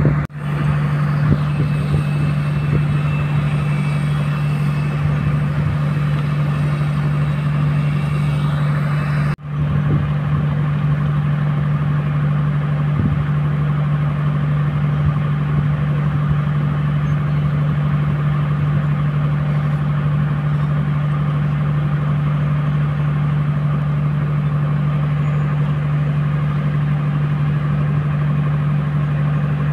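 Kobelco hydraulic excavator's diesel engine running with a steady low drone while the machine digs. The sound cuts out briefly twice, once just after the start and once about nine seconds in.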